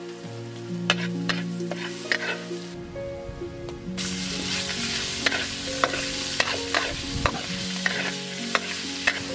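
Metal spatula scraping and clicking against a steel wok during stir-frying. About four seconds in, a loud sizzle starts suddenly as chopped raw pork goes into the hot oil with the garlic, and the clicking of the spatula goes on through it.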